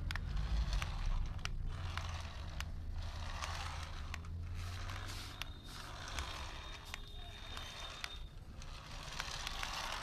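Toy remote-control car's small electric motor whirring in repeated short runs as it drives about on a wooden floor, with scattered clicks over a low steady hum.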